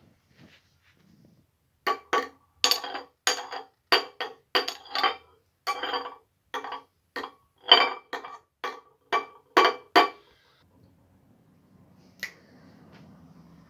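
A spoon tapping repeatedly on a glass jar, about twenty quick, uneven clinks that ring at the same pitch each time, starting about two seconds in and stopping about ten seconds in. One more clink comes near the end.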